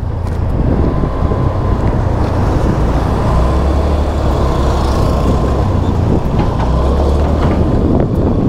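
Honda Activa scooter being ridden at road speed: its single-cylinder engine running under a steady rumble of wind and road noise, with a faint steady whine through the middle.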